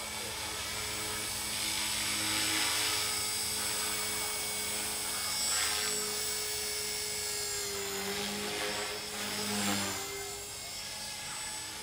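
Align T-Rex 450 Pro electric RC helicopter flying: the whine of its motor and the whir of its rotor blades, swelling and shifting in pitch several times as it manoeuvres.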